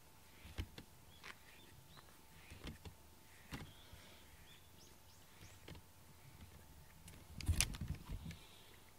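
A rubber grooming brush stroked through a cat's fur: faint, irregular soft rustles and clicks, with a louder rustling bump of handling about two-thirds of the way through.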